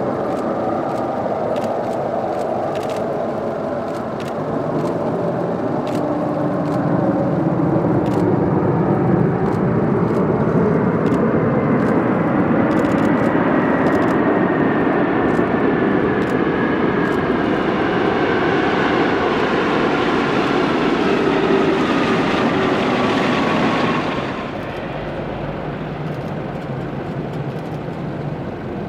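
Boeing 777-300's twin turbofan engines in reverse thrust during the landing roll: a steady heavy jet rush that builds a few seconds after touchdown, with a whining tone slowly falling in pitch. About 24 seconds in the noise drops suddenly as reverse thrust ends, leaving a quieter jet rumble.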